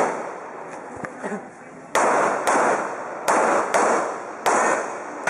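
Pistol fired in quick pairs: five sharp shots, two pairs about half a second apart and then a single, each trailing off in a long echoing decay.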